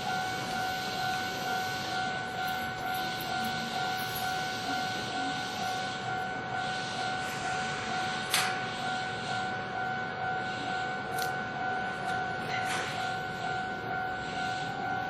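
Japanese level-crossing warning bell ringing continuously with its steady two-note electronic clang, over the running noise of a Keihan electric train at the crossing. A few sharp clacks stand out, the loudest about eight seconds in.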